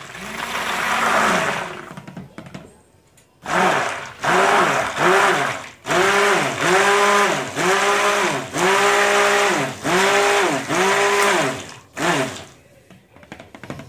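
Immersion stick blender switched on and off in short pulses, mixing lye solution into soap oils for cold process soap. With each pulse the motor's pitch climbs as it spins up and drops as it is let go. There is one longer run first, a brief pause, then a quick string of pulses.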